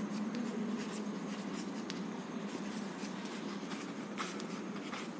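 Chalk scratching and tapping on a blackboard as a line of words is written, with a couple of sharper strokes near the end, over a steady low hum.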